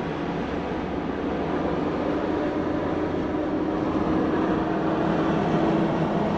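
A vehicle driving on the road: steady road and wind noise with an engine hum that rises slightly in pitch and gets a little louder as it gathers speed.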